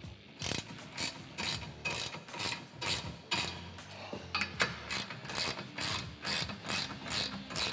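Hand socket ratchet clicking in short bursts, about two swings a second, as bolts are tightened down.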